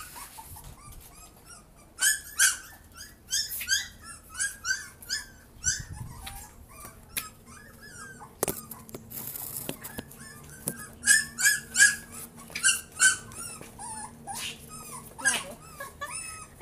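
Two young puppies whimpering and whining in runs of short, high-pitched cries with pauses between, as hungry puppies do while waiting to be fed milk. A few sharp clicks come in the middle.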